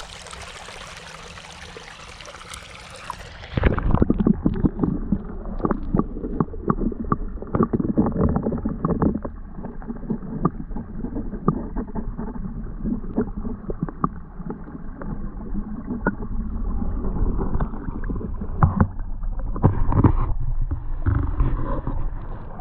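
Water splashing and sloshing with knocks and clatter as a trapped animal is hauled out of a beaver pond. The first few seconds are steady running water; about three and a half seconds in the sound turns suddenly louder and muffled.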